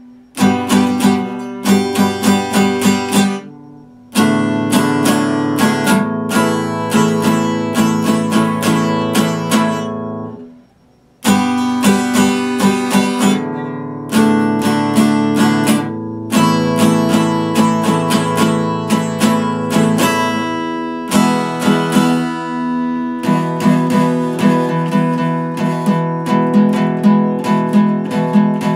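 Epiphone acoustic guitar strummed in chords with quick repeated strokes, moving from chord to chord. The playing breaks off briefly about four seconds in and again around eleven seconds in.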